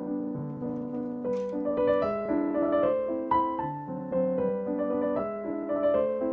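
Background piano music: a gentle melody of evenly paced notes over a low accompaniment.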